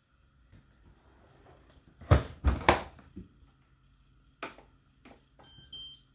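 A few sharp knocks and clatter from the dishwasher being handled: three loud ones close together about two seconds in, then two lighter ones. Near the end comes a brief series of high electronic beeps.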